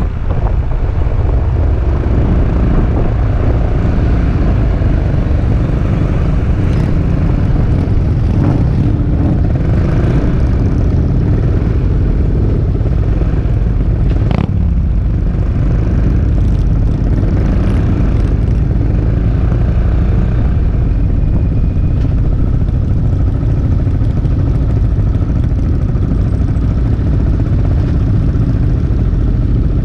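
Riding noise aboard a Peugeot Metropolis three-wheeled scooter: a steady low rumble of wind buffeting the camera microphone over the scooter's engine running at an even pace. A single sharp click comes about halfway through.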